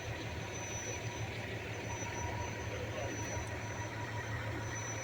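Fire truck's diesel engine idling with a steady low throb.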